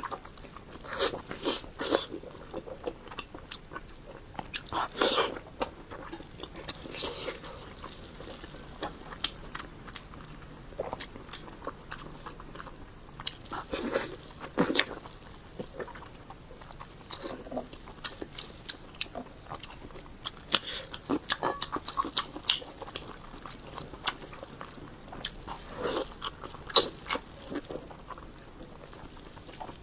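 Close-miked eating sounds of pork belly being bitten and chewed, in irregular short sharp mouth noises with a few louder bites along the way.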